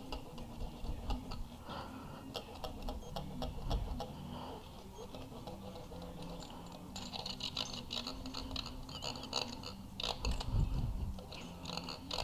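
A steel feeler gauge blade slid back and forth in the valve lash gap between a rocker arm and valve on a Honda B18C1 cylinder head, giving light metallic ticks and scraping, with a denser run of scraping about seven seconds in and a dull bump near the end. This is a clearance check after adjustment, feeling for a slight drag on the blade.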